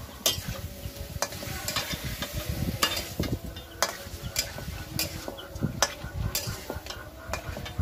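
A long metal spatula scraping and knocking irregularly against a steel karai as fish pieces are stirred and fried in oil and mustard-spice paste, with a steady sizzle underneath.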